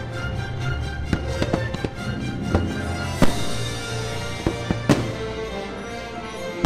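Aerial fireworks launching and bursting over the show's music score: several sharp bangs against steady music, the loudest about three seconds in.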